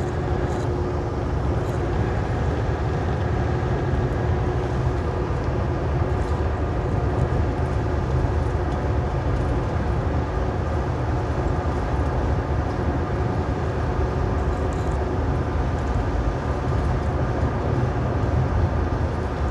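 Steady drone of a semi truck's diesel engine and tyre noise, heard from inside the cab while driving on the highway.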